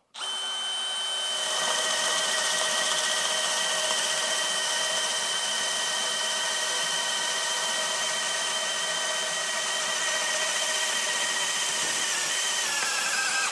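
DeWalt cordless hammer drill in drill mode on low speed (speed 1), running continuously as a spade bit bores a hole into a wooden beam. The motor's steady whine dips in pitch about a second before it stops abruptly.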